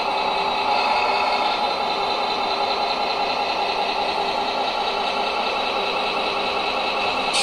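Radio-controlled scale trucks driving slowly by, their drive motors and gearboxes whirring steadily.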